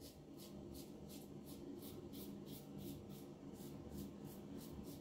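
Gillette New Short Comb safety razor with a Gillette Nacet blade scraping through lathered stubble on the neck in short, quick strokes, about three a second.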